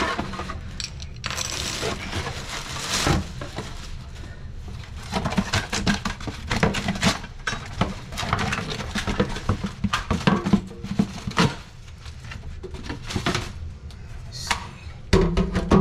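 Plastic wrapping and a cardboard box rustling and crinkling, with scattered clicks and light knocks, as a new kitchen faucet is unpacked and handled.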